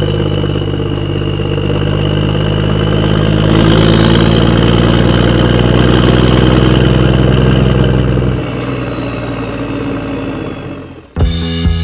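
Diesel tractor engine sound running steadily with a high whine over it, as a radio-controlled Bruder Fendt toy tractor drives. The whine rises about three and a half seconds in, and the low engine note drops away after about eight seconds. Music starts just before the end.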